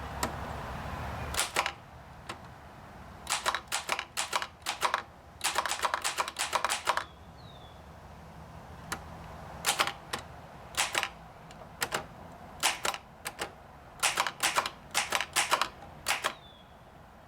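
Remington 3B manual typewriter being typed on: sharp typebar strikes in irregular quick runs of keystrokes, separated by short pauses.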